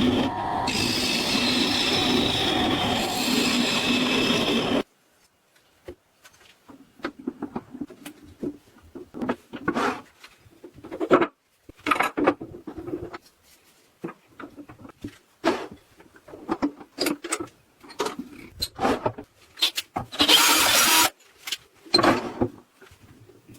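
A dense, steady workshop sound with some held tones stops abruptly about five seconds in. It is followed by a tool rubbing and scraping against wood in irregular short strokes with pauses between them, and one longer, louder scrape near the end.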